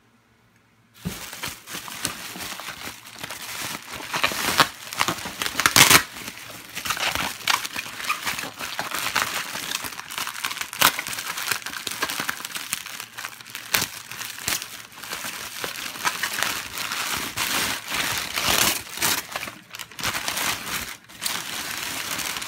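Plastic bubble wrap crinkling and crackling as hands pull it and dig through packing peanuts and paper in a cardboard box, starting about a second in, with the loudest crackles about five seconds in.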